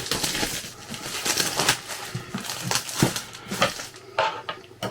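Cardboard box and packaging of a drone being handled and opened: irregular rustling and crinkling with scattered clicks and knocks.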